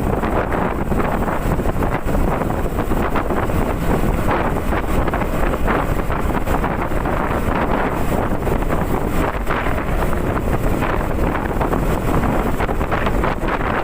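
Wind buffeting the microphone while riding a Honda CB150R motorcycle, with the bike's single-cylinder engine running steadily underneath.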